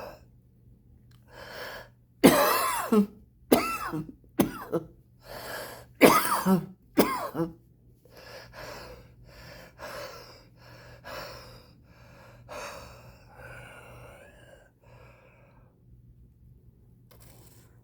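A smoker coughing hard in a run of loud coughs, then drawing quieter, wheezy breaths.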